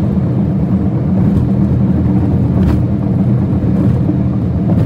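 Steady low rumble of a car cruising at speed on an expressway: tyre, road and engine noise heard from inside the car.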